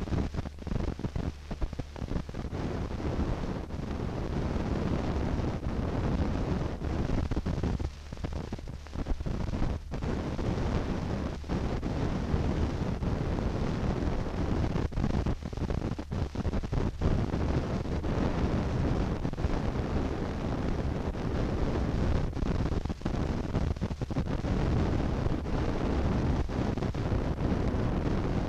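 Steady low rumbling noise with a low hum and hiss, broken by frequent brief crackles and dropouts; no narration.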